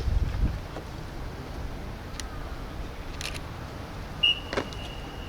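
The echo of the last drum beat dies away in a large hall, leaving low room tone with a few faint clicks. A thin, steady high tone comes in about four seconds in.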